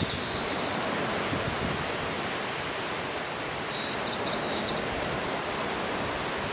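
Tree swallow giving one short, high twittering call about three and a half seconds in, a thin whistled note running straight into a quick chatter, over a steady rushing background noise.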